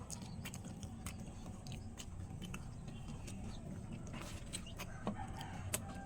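Chickens clucking faintly, with scattered small clicks from chewing.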